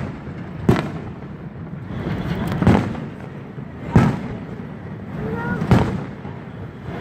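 Fireworks shells bursting overhead: four loud booms, one or two seconds apart, each followed by a short rumbling echo.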